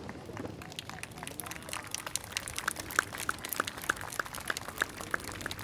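Spectators applauding with scattered claps. From about halfway in, one person close by claps steadily at about three claps a second.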